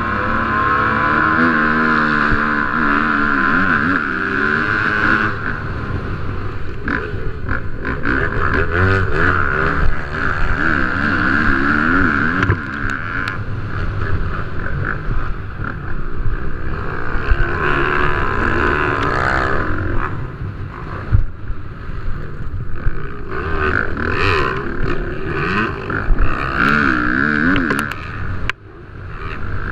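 Several motocross bikes racing, their engines revving up and down in overlapping rising and falling whines.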